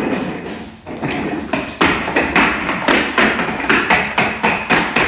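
Rapid, loud thuds or knocks repeating about three times a second, starting about two seconds in, typical of banging on a ceiling or floor.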